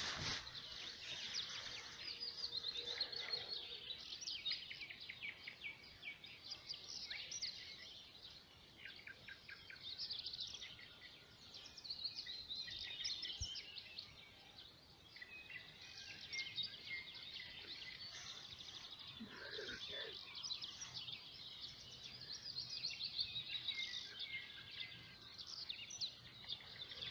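Several songbirds singing, many short high phrases overlapping one another. A brief burst of handling noise at the very start.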